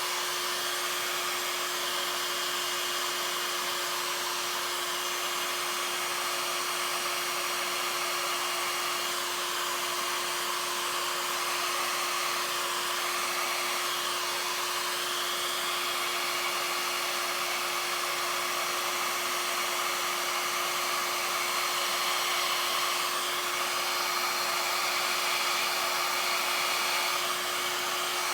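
Berta mini hair dryer running steadily: a constant motor hum under a rush of blown air.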